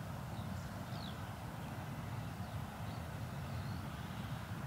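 Outdoor ambience: low wind noise buffeting the microphone, with faint, scattered high bird chirps.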